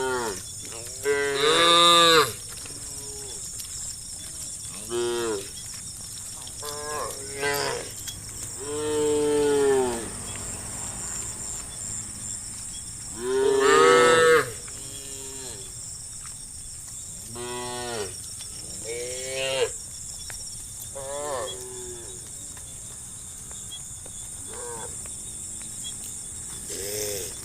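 A herd of cattle mooing: many separate calls from several cows, one after another, some long and loud and others short and fainter. The loudest come near the start and about halfway through.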